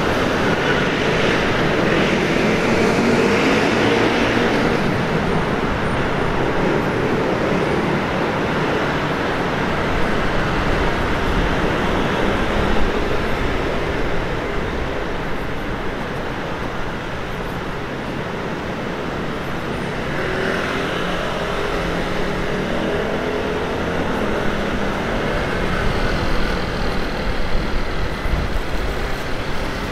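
Road and traffic noise heard while riding through city traffic: steady engine and tyre noise, with an engine's pitch rising and falling near the start and again about two-thirds of the way through.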